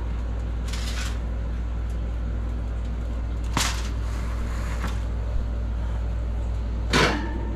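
A foil-covered aluminium baking pan is lifted out of an oven and set down on a countertop: brief foil rustles and a sharp click or clatter, with one louder knock near the end. A steady low hum runs underneath.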